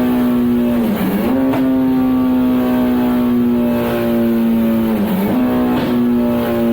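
Kawasaki ZX14R's inline-four engine running hard on a dyno through an aftermarket exhaust. It holds a steady, loud drone whose pitch dips briefly and recovers twice, about a second in and about five seconds in.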